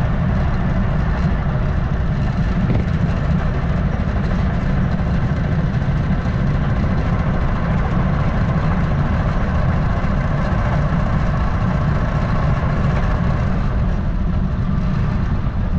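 Wind buffeting the microphone: a loud, steady low rumble, with a fainter rushing hiss like floodwater.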